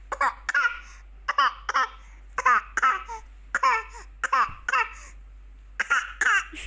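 A baby pretending to cough: short voiced coughs, mostly in pairs, about one pair a second.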